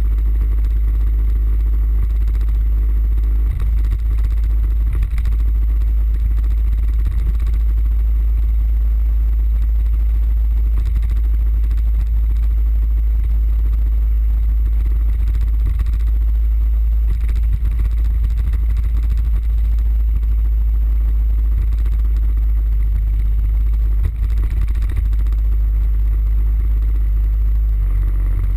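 Suzuki Burgman 650 parallel-twin scooter cruising at a steady speed: a loud, even low rumble of wind and engine on the bike-mounted camera mic, with no changes in pace.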